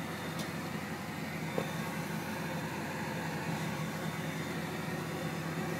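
Vehicle engine idling: a steady low hum with no change in speed.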